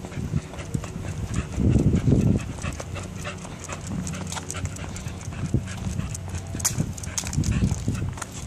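Footsteps and a pit bull's claws tapping on a concrete sidewalk in a walking rhythm, with the dog panting. A brief low rumble about two seconds in.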